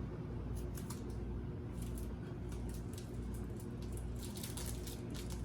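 Scattered soft crunches and clicks of chewing a Coffee Crisp chocolate wafer bar, over a steady low hum.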